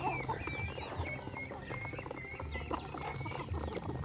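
A flock of young chickens feeding, with short high chirping calls repeated every half second or so over light pecking taps.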